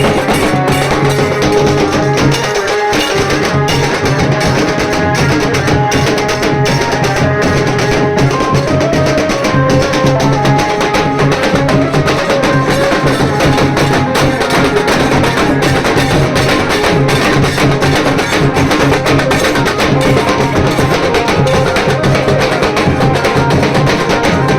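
Nasik dhol band playing loud, fast, continuous drumming with sharp, rapid strokes, with a melody line held over the beat.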